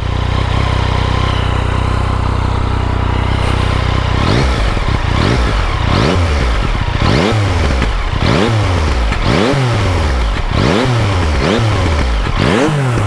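Yamaha XSR900's 847 cc inline-three, breathing through an aftermarket MIVV Oval carbon slip-on with its dB killer fitted, idles steadily and then, about four seconds in, is blipped again and again, rising and falling about once a second. It sounds much like the stock exhaust, only a touch raspier, and fairly quiet, which the owner puts down to the dB killer.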